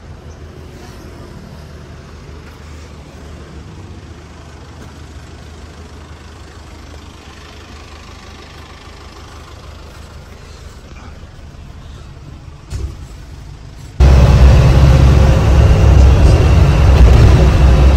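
Minivan engine idling with a low steady rumble, with a short knock near the end of that stretch. Then, abruptly, much louder engine and road noise heard from inside the cabin as the van drives along for the last few seconds.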